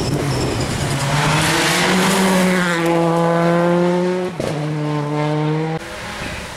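Rally car on a gravel stage, its engine rising to high revs and held there. About four and a half seconds in it shifts gear quickly, then pulls again until the sound cuts off suddenly near the end.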